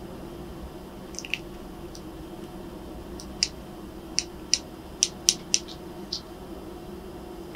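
Sharp little clicks of a white plastic clothes-peg clip as a cat bites and nibbles at it: two about a second in, then a quick run of clicks in the second half, over a steady low hum.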